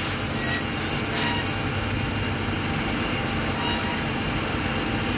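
Kasto Twin A4 automatic band saw running with a steady mechanical noise. A high hiss at the start fades out about a second and a half in.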